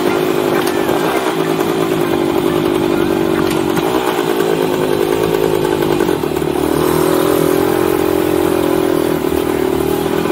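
A 1971 Yamaha HT1 90's small two-stroke single-cylinder engine running as the bike is ridden, its pitch dipping and then climbing about six seconds in.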